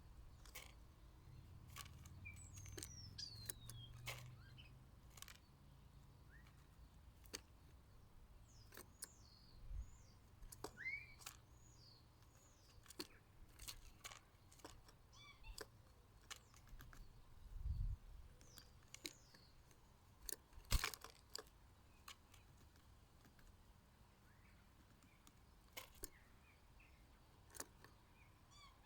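Small garden birds chirping faintly in short, scattered calls, some rising or falling in pitch. Sharp taps and clicks come throughout, one louder about twenty seconds in. A low rumble runs under the first few seconds.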